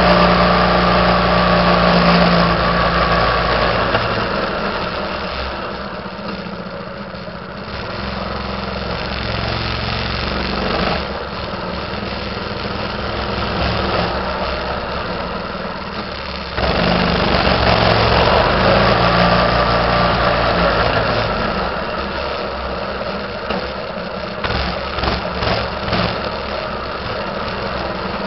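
Minibike's small engine running under way, its note falling and rising with the throttle, with wind noise over the microphone. Near the end the engine note comes in short choppy swells.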